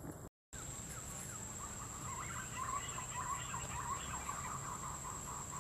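A flock of birds calling: a rapid chatter of short chirping notes that starts about a second and a half in, over a steady high insect whine.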